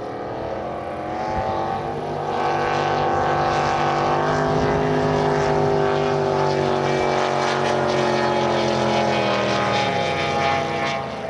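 Two racing jet boats running flat out side by side, their engines a loud, steady blare. It swells over the first couple of seconds, then sinks slowly in pitch as the boats pass, with a sharper drop about ten seconds in.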